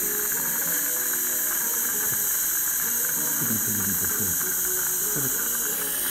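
Dental saliva ejector sucking in the mouth: a steady hiss of air drawn through the suction tube, breaking into rattling gurgles a little past the middle.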